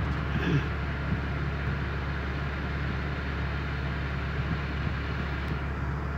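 Steady low hum of a car's running engine, heard from inside the cabin.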